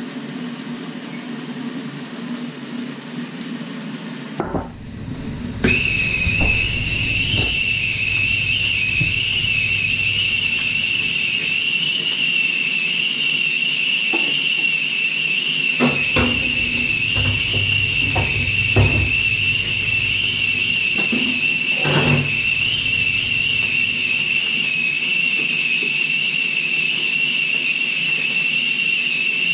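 Stovetop whistling kettle whistling at the boil: one steady high whistle that starts about six seconds in. Scattered knocks under it.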